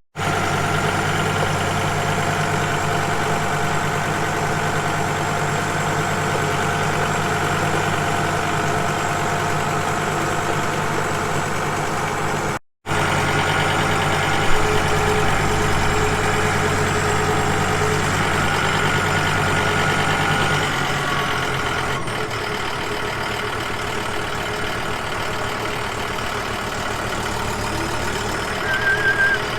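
A vehicle engine running steadily. The sound cuts out for an instant partway through, and about two-thirds of the way in the engine settles to a lower, slower idle.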